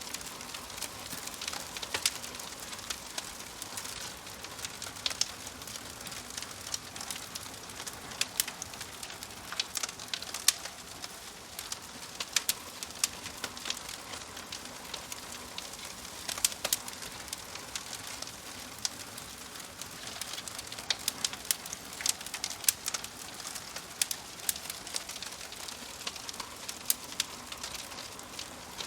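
Fireplace wood fire crackling: frequent irregular sharp pops and snaps over a steady hiss.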